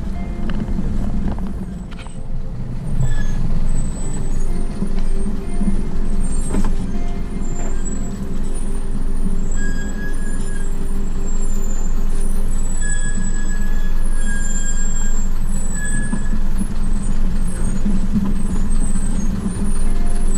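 A vehicle's engine running steadily as it drives slowly down a narrow lane, with road noise.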